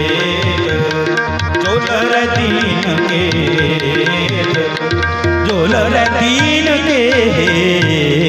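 Sikh kirtan: harmonium chords held under a sung melody, with tabla strokes throughout.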